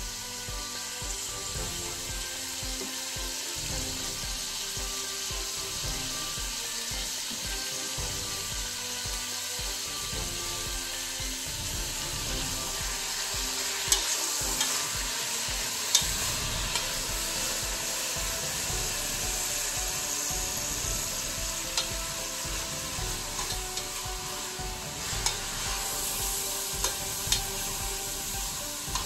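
Julienned radish sizzling steadily in perilla oil in a pot, being stir-fried with a spoon. From about halfway, the spoon clicks against the pot now and then.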